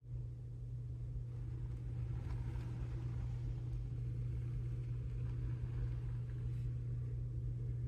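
Steady low hum, with faint hiss above it, starting abruptly at the start and holding unchanged.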